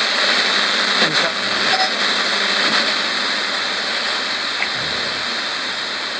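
Static hiss from a portable analogue radio's speaker as its tuning dial is turned slowly by hand between stations. A few faint, brief blips break through the hiss.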